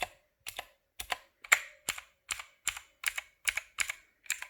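Clicky Otemu Blue mechanical key switches on a gaming keypad being pressed one by one: sharp clicks about three a second, with a faint metallic ring from the switch springs under them.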